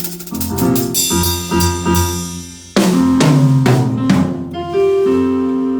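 Live band playing: keyboard chords held over a drum kit. The sound dips briefly and then comes back in with a loud drum and cymbal hit about three seconds in.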